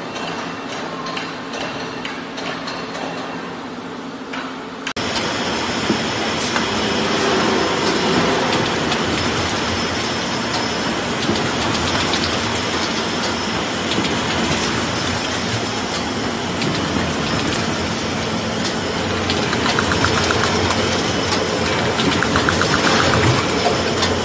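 Card slitting and collating machine running with a steady mechanical clatter of rollers and feed; the noise jumps suddenly louder about five seconds in.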